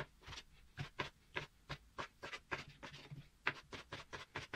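Kitchen knife slicing boiled squid into thin strips, each stroke knocking on a wooden cutting board in a steady rhythm of about four cuts a second.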